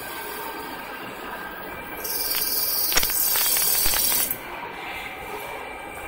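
Automatic water meter machining machine running with a steady hum. About two seconds in, a loud high-pitched hiss starts with several sharp clicks and knocks, and cuts off suddenly about two seconds later.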